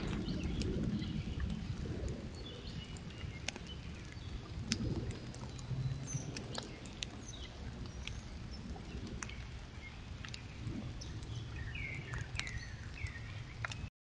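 Woodland sound picked up by a trail camera's microphone: a steady low rumble of background noise, scattered sharp clicks and rustles, and a few short bird chirps, mostly near the end.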